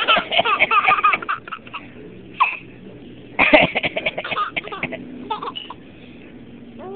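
A baby laughing hard in two runs of giggles, one at the start and another about three and a half seconds in, set off by a man's coughing.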